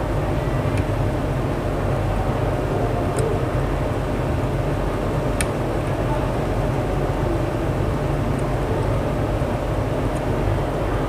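Steady low hum with a hiss over it, from running machinery, with a few faint ticks.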